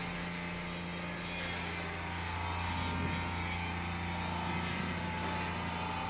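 Pan-type concrete mixer's motor running with a steady hum while the empty steel pan is tilted.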